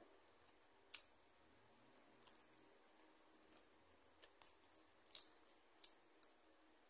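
Faint, scattered clicks and light rustles of fingers picking food out of a cardboard takeout box, a few dry ticks every second or so over near silence.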